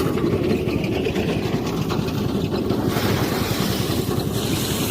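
The engine of a paddy-harvesting machine running steadily at a constant speed: a loud, even, low mechanical drone.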